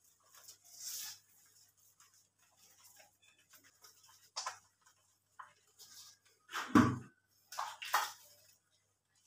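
Hands rubbing and lathering a wet, soapy puppy's fur: scattered wet rubbing and splashing noises, with one louder thump a little before the end.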